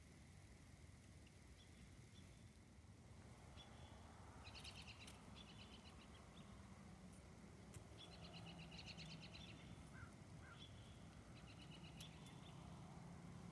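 Faint bird trills: short, rapid, high-pitched trills of about a second each, repeating every few seconds over a quiet rural background.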